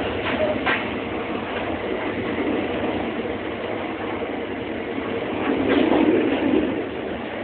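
Train running on the rails, heard from on board: a steady rumble of wheels and track noise, with a couple of short clacks just after the start and a louder surge about six seconds in.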